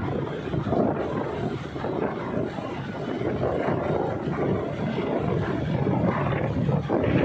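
Steady rumbling noise of a ship at sea, with wind buffeting the microphone.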